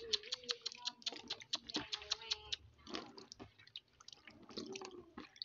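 Irregular quick clicks and ticks, several a second, like handling or tapping, with a faint wavering tone under them in the first second or so.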